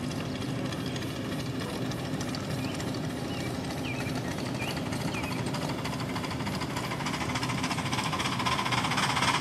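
Ride-on live steam Mikado locomotive (Nickel Plate Road 611) running past, with a rapid, steady beat of exhaust and running gear on the track. It grows louder near the end as it comes close.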